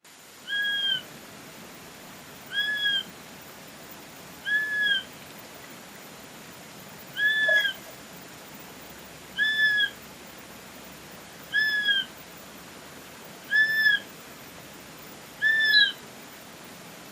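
Swainson's flycatcher (irré, Myiarchus swainsoni) calling: a short whistled note that rises and falls, repeated about every two seconds, eight times.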